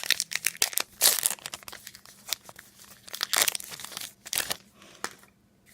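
Trading-card pack wrapper crinkling and tearing as a fresh pack is ripped open, in several short crackly bursts that die away about five seconds in.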